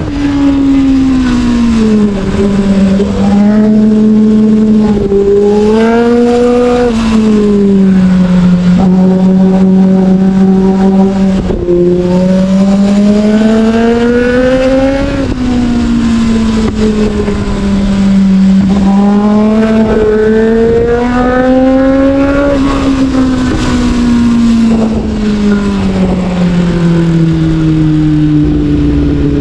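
Onboard sound of a sportbike engine pulling through a run of bends: the engine note rises and falls smoothly as the throttle is rolled on and off, with a few sudden steps in pitch at gear changes, over a steady rush of wind noise.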